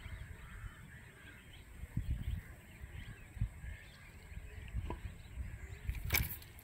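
Quiet open-air ambience: a low, uneven rumble of wind on the microphone with faint bird calls, and a brief sharp rustle about six seconds in.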